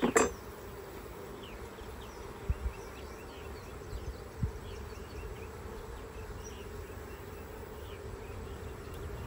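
Honey bees buzzing as a steady hum over an opened hive. Two sharp clicks right at the start come from the hive tool prying a frame loose, and there are two brief dull bumps a few seconds in.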